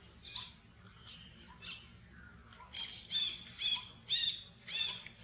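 A run of short, high-pitched squealing animal calls, each rising and falling. They are faint and scattered at first, then louder and repeated about twice a second in the second half.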